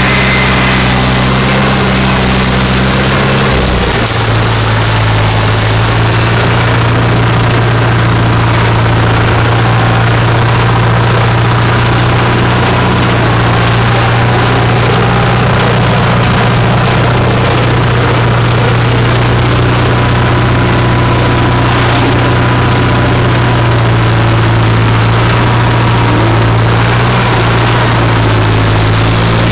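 Old tractor's engine running steadily, close and loud from the driver's seat, with a shift in engine speed about four seconds in.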